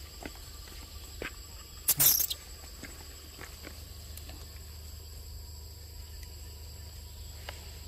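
Steady high-pitched drone of insects, with scattered small clicks and taps and a brief cluster of sharp crackles about two seconds in.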